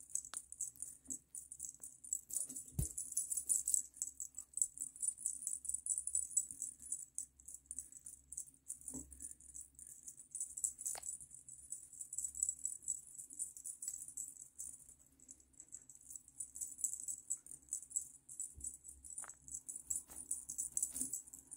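Small jingle bell tinkling in quick, uneven shakes as a kitten bats at a hanging toy, with a few soft knocks along the way.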